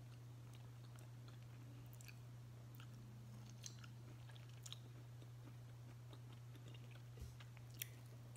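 Faint chewing and a few small mouth clicks from a person eating, over a steady low hum.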